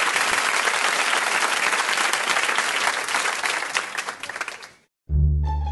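A crowd applauding, with many individual claps, fading out about four and a half seconds in. After a moment's silence, music with a deep bass note begins near the end.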